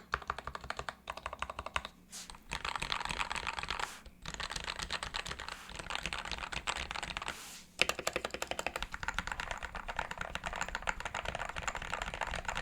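Custom Royal Kludge RK100 mechanical keyboard with lubed and filmed Gateron Black switches being typed on quickly. The keystrokes come in runs of rapid clicks with a few short pauses.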